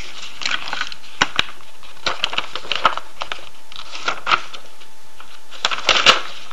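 Scattered light clicks and short scratchy rustles, irregularly spaced, with the loudest cluster about a second before the end.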